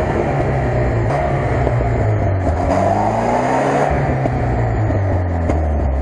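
UAZ-469 off-roader's engine running hard under load as it crawls through a deep mud rut. The revs rise and fall, with a climb about halfway through.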